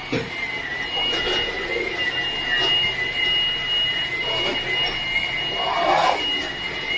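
Cardboard box flaps, foam packing and plastic wrapping being handled, with irregular rustling and crinkling, the loudest about six seconds in. A steady high-pitched whine runs underneath throughout.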